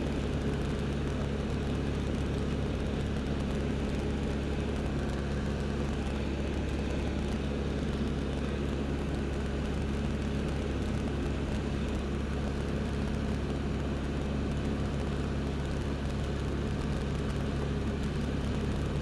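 L-13 Vivat motorglider's piston engine and propeller running steadily in flight, heard from inside the cockpit.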